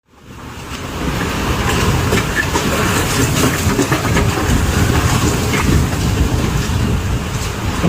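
Severe thunderstorm: a loud, steady roar of wind-driven rain with many sharp impacts throughout, fading in over the first second.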